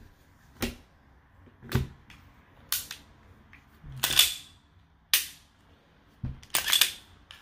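Metallic clicks and clacks of a Glock 23 Gen 4 pistol's slide and action being worked by hand, about one a second. Two of them, a few seconds in and near the end, are longer and louder clacks.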